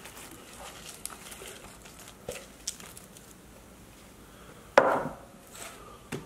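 Shredded lettuce and tomato being dropped from a container onto a tray of cheese-topped nachos, with soft rustling and light scattered ticks, then one louder knock a little before five seconds in.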